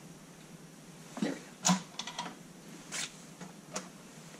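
Light plastic clicks and knocks from a plastic model tank and kit parts being handled and set down on a workbench, about half a dozen separate taps.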